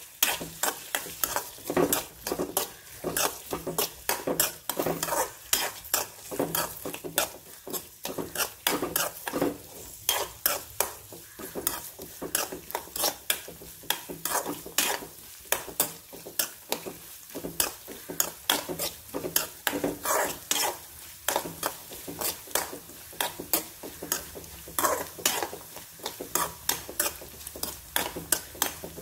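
Chopped coconut frying in coconut oil in a metal kadai, sizzling steadily while a metal spoon stirs it, clinking and scraping against the pan several times a second.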